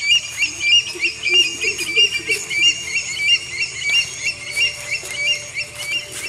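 Birds calling: a high chirping note repeated about three times a second, with lower warbling calls in the first couple of seconds.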